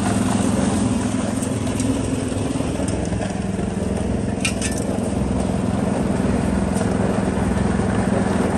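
Portable cement mixer running with a steady hum, its drum turning as wet concrete is tipped out and slides into a trench formwork, with a few gritty clinks of gravel about halfway through.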